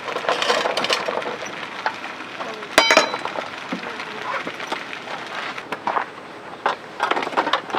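Tableware clattering as breakfast is served: a run of light clicks and knocks of utensils on dishes, with one sharp, ringing metallic clink about three seconds in.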